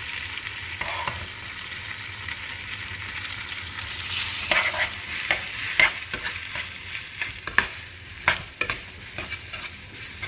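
Spaghetti and pancetta sizzling in a hot frying pan while being stirred. A steady sizzle runs throughout, with a utensil clicking and scraping against the pan; the clicks come more often in the second half.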